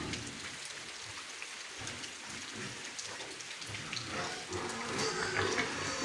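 Steady patter of rain, a crackly hiss of many small drops. Pig calls come in about four seconds in.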